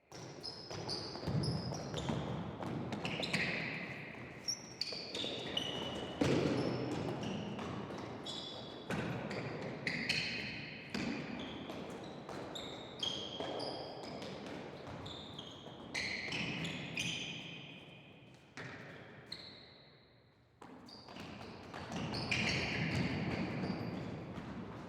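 Gym shoes squeaking on an indoor court floor as people move about: many short high squeaks, some sliding in pitch, among thumps and bounces and a hall-like background. It dies down about three-quarters of the way through, then picks back up.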